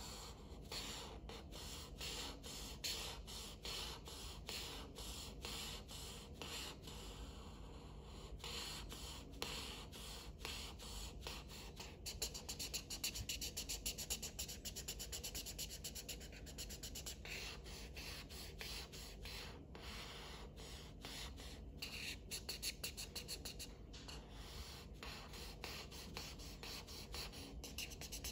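Marker nib scratching and rubbing on paper in quick back-and-forth colouring strokes, steady throughout. The strokes come fastest and loudest a little under halfway through.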